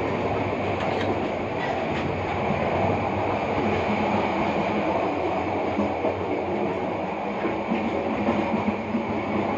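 A train running along the track: a steady rumble with some wheel clatter.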